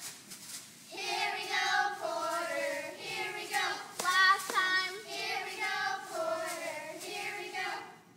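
A group of young girls' voices chanting a cheer in unison, drawn out and sing-song, with a couple of sharp claps about four seconds in; the voices stop abruptly near the end.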